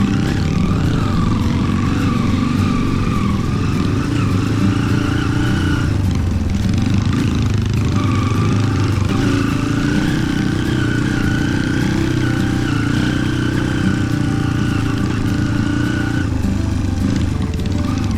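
Trail motorcycle engine running at a steady pull. It eases off about six seconds in and picks up again about two seconds later.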